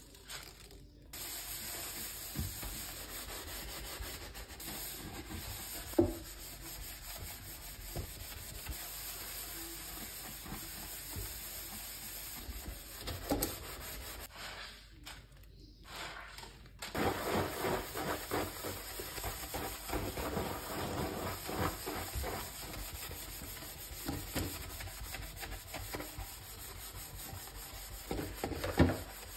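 Sponge scrubbing a soapy stainless steel sink: a steady rubbing and swishing made of many short back-and-forth strokes, busier in the second half. A single sharp knock about six seconds in.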